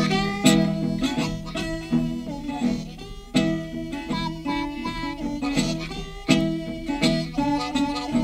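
Hill country blues played on acoustic slide guitar and harmonica, with no singing. The guitar plays a repeating riff with hard-plucked accents every few seconds, and the harmonica plays along.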